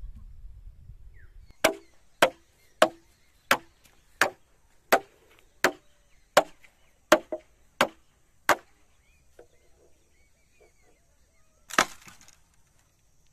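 Steady chopping with a blade into bamboo: eleven sharp, evenly spaced blows about two-thirds of a second apart. After a pause, a single longer, rougher crack comes near the end.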